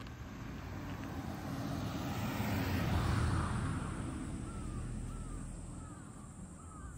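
An aircraft passing overhead: a deep rumble that swells to its loudest about three seconds in, then slowly fades.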